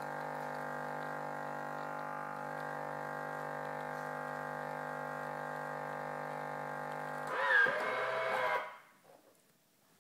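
Pronto ME707 fully automatic coffee machine's pump humming steadily while it pours an espresso through its twin spouts. About three-quarters of the way through, the sound jumps louder and wavers for about a second as the shot finishes, then the machine goes quiet.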